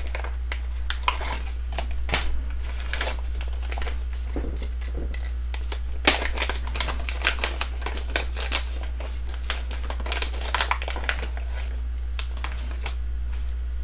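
Clear plastic zip-lock bag crinkling and crackling as it is opened and a sheet of 3D-printed track parts is pulled out of it, with the sharpest crackle about six seconds in. A steady low hum runs underneath.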